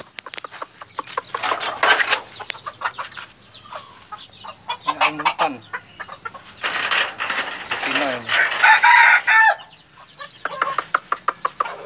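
Red junglefowl and brugo roosters clucking and calling in short bursts, with a rooster crowing near the end in one long call of over a second that cuts off sharply.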